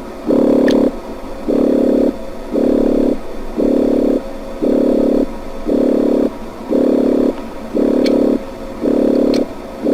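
An electronic warning tone pulsing steadily, about one beep a second, each beep a low buzzy tone lasting a little over half a second. A few faint high chirps sound near the start and near the end.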